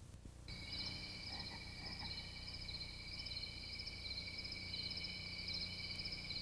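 Chorus of calling frogs, faint: several steady high-pitched chirring tones, with a trill repeating about twice a second. It comes in about half a second in.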